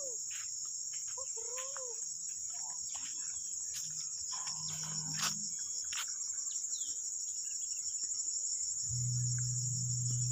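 Steady high-pitched insect chorus, a continuous pulsing trill of crickets or similar insects in grassland.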